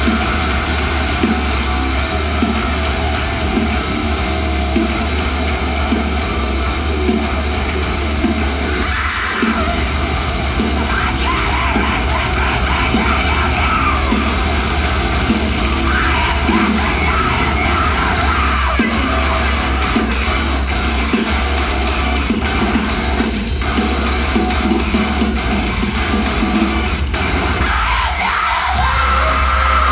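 A live heavy rock band playing loud in an arena: distorted guitars, bass and drums, with a woman's lead vocals sung into a microphone over them.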